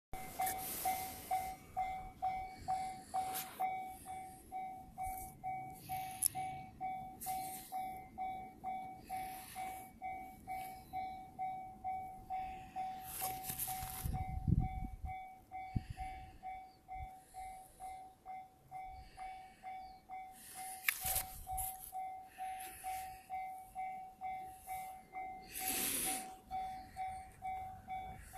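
Japanese railroad-crossing warning bell ringing in steady, evenly spaced electronic dings, with brief rushes of noise now and then and a short low rumble about halfway through.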